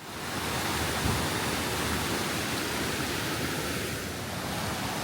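Steady rushing of a mountain stream's water, with a light knock about a second in.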